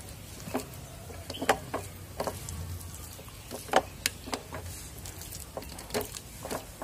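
Irregular soft squelches and clicks of fingers pressing wet masala paste into the slits of a whole pomfret on a steel plate.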